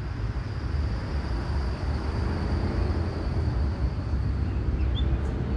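Outdoor background of a steady low rumble, like distant traffic, with a faint engine hum from about two seconds in and a couple of short bird chirps near the end.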